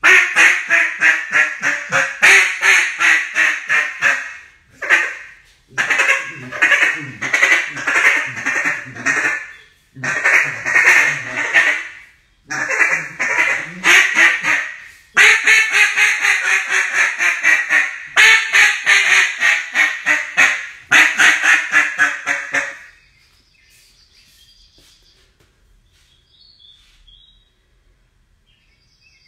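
Duck call blown in a series of quacking runs: rapid quacks several a second, each run one to three seconds long, falling in pitch, with short pauses between them. The calling stops about 23 seconds in.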